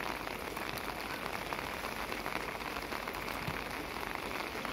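Steady rain falling: a dense, even hiss of many small drops.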